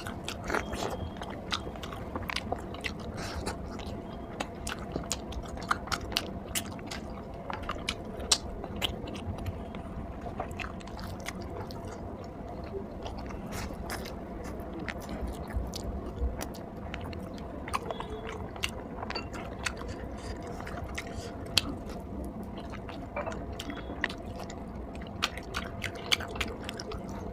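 A person chewing and biting food close to the microphone, with many small wet mouth clicks and smacks at an irregular pace.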